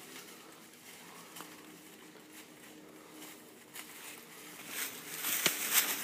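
Horses' hooves crunching and rustling through dry fallen leaves, faint at first and louder with sharper crackles near the end.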